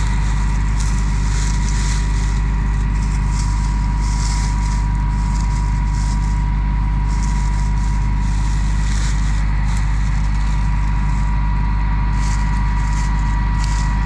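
Diesel engine of large harvest machinery running steadily at a constant speed, a deep drone with a steady high whine over it and short bursts of hiss.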